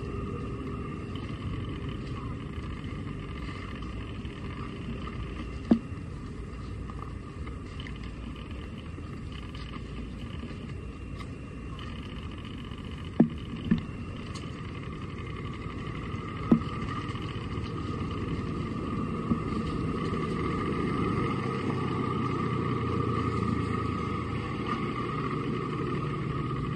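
Steady outdoor background noise, a low rumble with a faint steady hum over it, broken by a few sharp clicks, twice in quick succession about halfway through.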